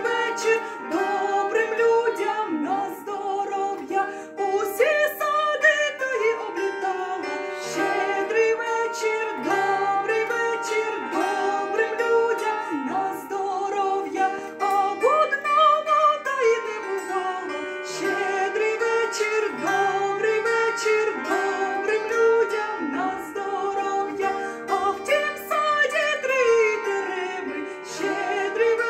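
A woman singing a Ukrainian shchedrivka (New Year carol) in long held, wavering notes over plucked-string accompaniment.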